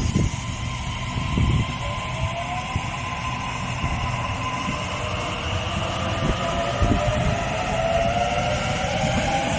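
Sydney Trains double-deck electric suburban train pulling away past the platform: a low rail rumble with a few knocks from the wheels, and an electric whine that rises in pitch as it picks up speed.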